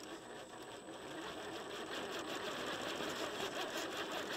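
Axial SCX10 III RC rock crawler's electric motor and geared drivetrain whirring steadily under load as it crawls up a steep rock face, getting louder about a second or two in.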